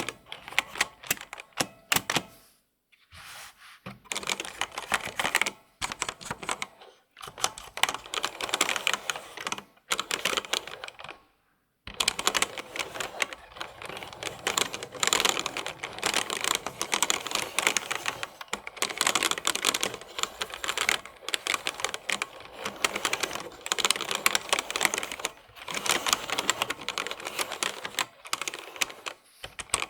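Close-miked computer keyboard typing: rapid runs of crisp key clicks, broken by a few short pauses, the longest about eleven seconds in.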